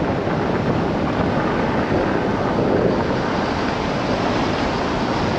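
Steady rush of wind on the microphone mixed with tyre and road noise from a car driving along an unsealed dirt road.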